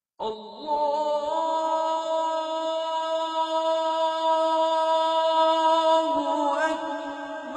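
Wordless a cappella vocal music holding one long note that starts out of silence, then moves to other pitches about six seconds in.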